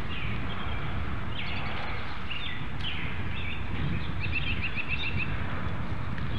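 Birds chirping and calling, with a quick trill of about eight short notes a little past the middle, over a steady low rumble.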